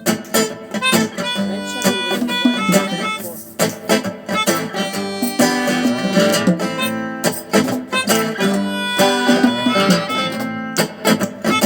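Acoustic guitar strumming in a steady rhythm with a harmonica playing held notes over it: the instrumental opening of a folk-rock song, before the singing begins.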